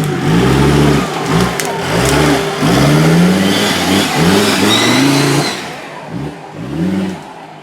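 Off-road 4x4 trophy vehicle's engine revved in repeated short throttle blips, about one a second, each rising and falling in pitch. It eases off and quietens about five and a half seconds in.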